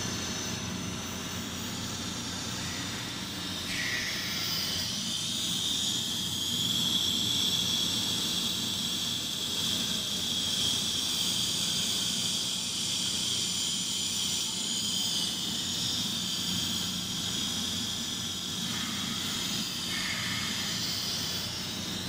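Automatic longitudinal seam welder laying a straight weld: the welding arc gives a steady hiss over a low machine hum, with a high steady whine that comes in about four seconds in and fades out a few seconds before the end.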